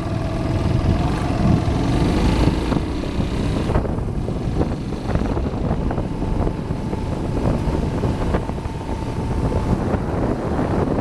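Suzuki Djebel 200's single-cylinder four-stroke engine running as the bike rides along a rough road, its note rising a little in the first couple of seconds, then holding steady. Wind buffets the microphone, and frequent short knocks and rattles come from the bike going over the bumpy surface.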